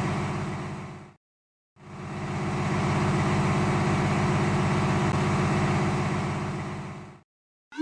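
Engine idling sound effect, a steady, evenly pulsing rumble. It fades out about a second in, is gone for about half a second, then fades back in and runs until it fades out again near the end.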